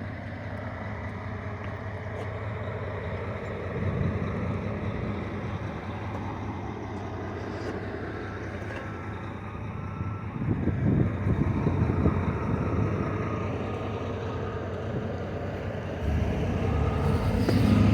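A motor vehicle's engine running steadily with a low rumble, rougher and louder for a moment about four seconds in and again around ten to twelve seconds, then building up near the end.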